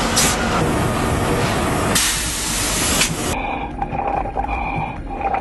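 Loud rushing hiss of a lever-operated winch as it is worked to hoist the anchor, with a brief burst just after the start and a stronger burst lasting about a second near the middle. The hiss cuts off suddenly a little past the middle, and background music follows.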